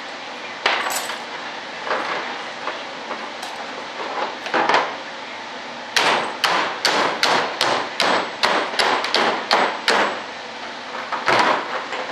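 Small hammer tapping on a wooden building board: a few scattered knocks, then a quick run of about a dozen sharp taps at a little under three a second, and one more tap near the end.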